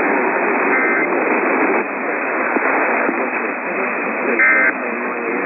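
Narrow-band radio reception, hissing with faint, indistinct voices underneath. Short bursts of warbling digital data tones come through: a faint one about a second in and a louder one near the end. These are the EAS end-of-message bursts, signalling that the alert activation is over.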